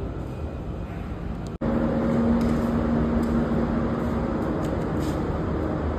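Steady hum of ventilation and equipment in an electrical control-panel room. About a second and a half in, the sound drops out for an instant and comes back louder, with a steady low hum tone.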